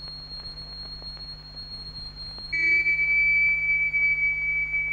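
An X-ray machine switched on, giving a steady high-pitched electronic whine that starts abruptly about two and a half seconds in and holds. Under it are a fainter, higher tone and a low mains hum.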